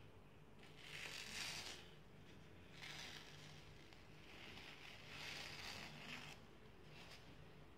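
Faint peeling and crackling of a dried black peel-off face mask being pulled off the skin, in four short spells.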